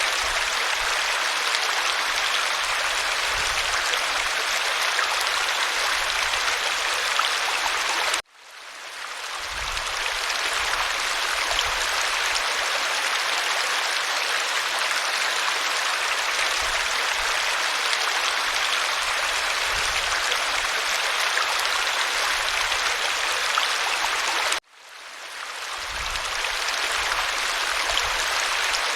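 Steady rushing of a waterfall. Twice, about a third of the way in and again near the end, the sound cuts out abruptly and fades back up over a second or two.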